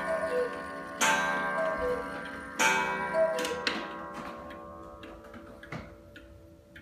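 Circa 1890–1900 Black Forest cuckoo clock striking the hour. Three times, a ringing gong strike comes with a two-note falling cuckoo call, about a second and a half apart, and the ringing fades away. Near the end only the movement's steady tick, about two a second, remains.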